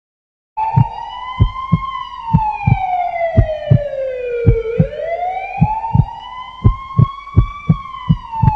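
A siren wailing, sliding slowly down in pitch, back up, then down again, over a steady low thumping beat of about three thumps a second. It starts suddenly about half a second in.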